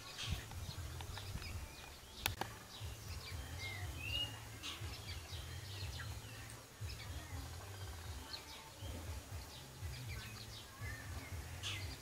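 Small birds chirping in short high notes, over a low rumble, with one sharp click a little over two seconds in.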